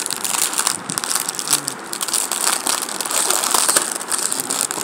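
Plastic packaging crinkling and crackling as small hands squeeze and handle it, with a continuous run of quick crackles.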